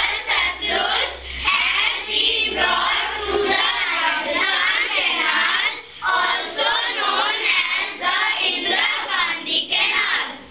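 A class of young schoolchildren singing together in chorus, many voices at once.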